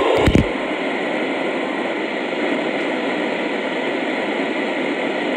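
Radio static: a steady hiss from a receiver, with a few clicks right at the start.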